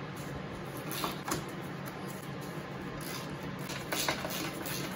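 A few light clicks and knocks of a hand tool working on the old outboard motor's metal parts while it is being taken apart, over a steady low hum.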